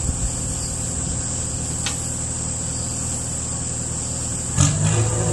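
Mustang 940 skid loader's turbocharged Yanmar 4TNE84 four-cylinder diesel running steadily at low speed. About four and a half seconds in there is a clunk and the engine grows louder.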